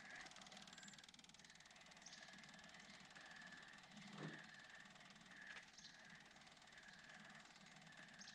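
Near silence: faint background with one soft knock about four seconds in.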